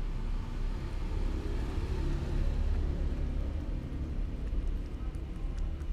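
Low rumble of background traffic that swells about two seconds in and eases off again.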